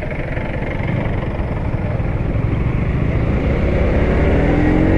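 KTM Duke motorcycle engine running under way, with the engine note rising in pitch near the end as it accelerates.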